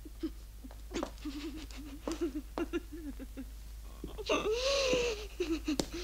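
A woman's wordless voice: short, breathy whimpering sounds, then about four seconds in a louder, drawn-out moaning cry that rises and falls.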